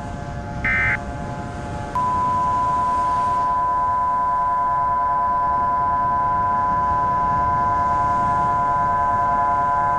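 The last short burst of an Emergency Alert System end-of-message data signal, then about two seconds in a steady single-pitched test tone comes on and holds, over a constant buzzing drone and hiss.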